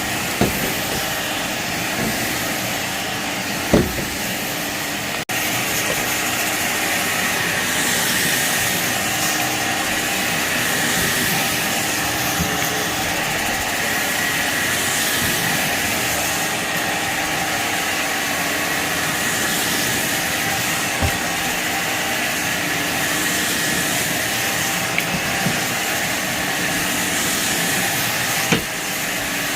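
Shark vacuum cleaner running steadily over a dirty carpet, a constant whine over a rushing hiss, with a few sharp clicks as debris is sucked up.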